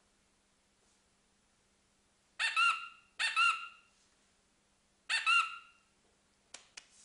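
Three short squeaky honks, each under a second, the first two close together and the third about two seconds later. A couple of sharp clicks near the end.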